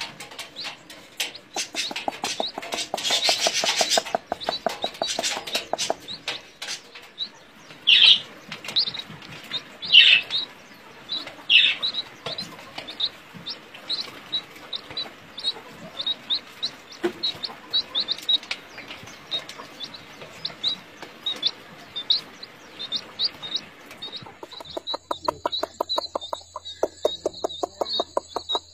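Black francolin chicks peeping: many short, high chirps in quick succession, with a few louder calls that slide downward partway through. Near the end a fast, even pulsing sound over a low hum comes in.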